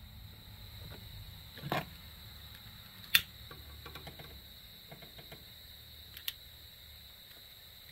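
Clicks of a long-nosed butane utility lighter being worked at a camp-stove burner: a sharp click about three seconds in, with a few smaller clicks and light knocks around it. The burner does not catch, because it is the wrong burner.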